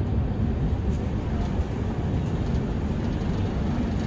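Steady rumble of a moving passenger train, heard from its open coach doorway as it rolls along a platform.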